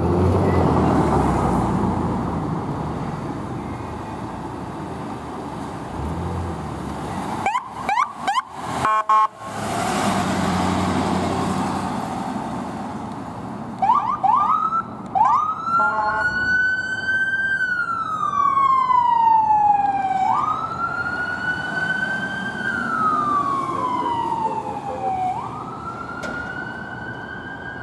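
A Ford fire-department medical response truck's engine running as it pulls out, then a few short honks around eight seconds in. A few quick siren chirps follow, and from about sixteen seconds its siren wails, rising quickly and falling slowly in cycles of about five seconds.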